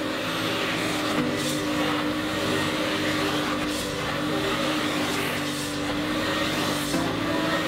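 Carpet extractor's vacuum running steadily as its wand is drawn across wet car carpet, sucking up the hot rinse water.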